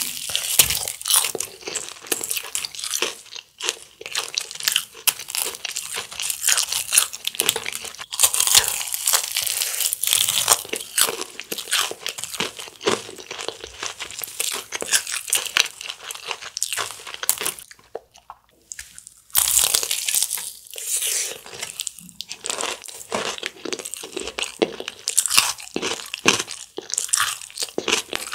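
Crispy crust of black pepper fried chicken crunching as it is bitten and chewed close to the microphone, a rapid crackle of many small cracks, with a brief pause about two-thirds of the way through.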